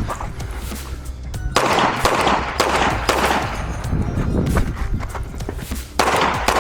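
Pistol shots fired at irregular spacing during a timed IDPA stage, over background music with a steady low beat.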